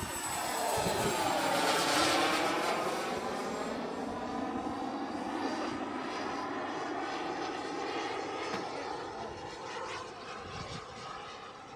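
Turbine engine of a large radio-controlled F-16 model jet flying past overhead, loudest about two seconds in, then fading slowly as it moves away.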